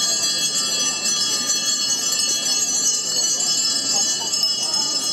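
Altar servers' hand bells ringing without a break, a dense high jangle of many small bells, as the procession walks.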